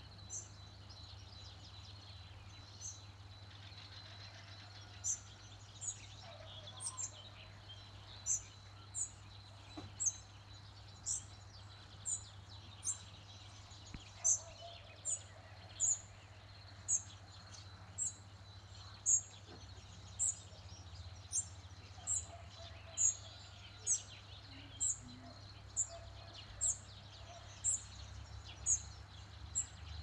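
A small bird repeating a single short, high-pitched chirp about once a second, the calls coming sparsely at first and then steadily from about five seconds in.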